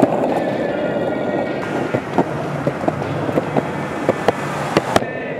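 Skateboard wheels rolling fast over pavement in a steady rumble, with sharp clicks from about two seconds in, roughly two a second, as the wheels cross cracks and joints in the concrete.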